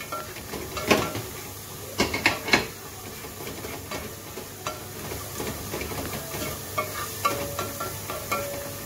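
Crushed ginger and garlic sizzling in hot coconut oil in a nonstick pot, stirred with a spatula that scrapes and knocks against the pan, loudest around one and two seconds in. The ginger and garlic are being sautéed until their raw smell is gone.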